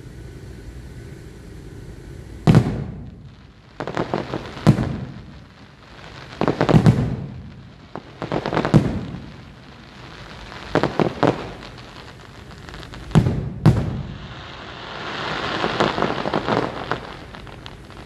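Aerial fireworks shells bursting: a string of sharp booms about every two seconds, each echoing and trailing off. Two come close together, then a longer swell of rumbling with several pops near the end.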